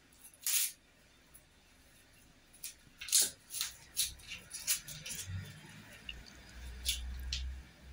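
Dry, papery outer skin being peeled off a purple onion by hand: scattered crisp crackles and rustles, a few at a time.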